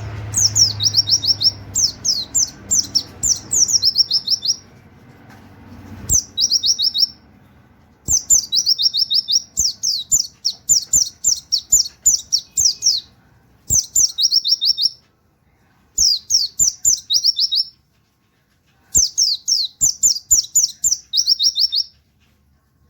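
Pleci (white-eye) singing in rapid 'nembak' bursts of quick, falling whistled 'wit-wit' notes in a canary-like style. The bursts are spaced by short pauses of about a second, with a few soft clicks in between.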